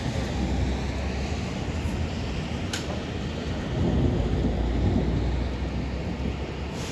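Thunder rumbling over steady rain, the rumble swelling about four seconds in.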